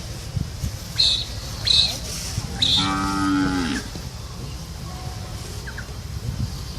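A cow mooing once, a call of about a second that falls in pitch at its end, a few seconds in. A few short high-pitched chirps come just before it.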